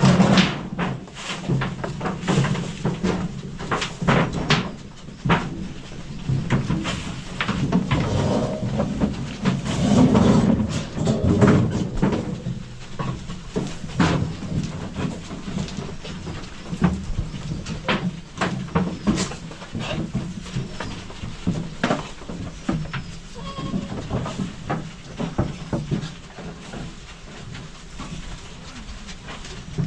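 Goats bleating, with many short knocks and clicks throughout.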